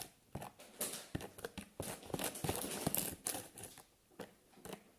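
Small clicks, taps and crinkling from slime-making materials being handled by hand, busiest in the first few seconds and dying down near the end.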